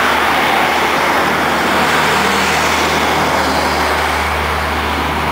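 Airbus A320's jet engines running at taxi power as the airliner rolls past: a steady, even rush of engine noise with a low hum underneath.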